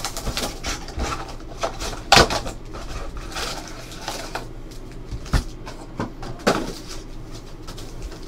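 A cardboard Panini Select trading-card hobby box handled, and its foil packs taken out and stacked: scattered knocks and rustles, the sharpest knock about two seconds in, with a few smaller ones later.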